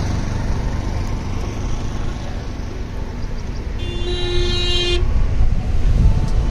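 Steady low rumble of a vehicle driving on a road, with one vehicle horn blast about a second long near four seconds in.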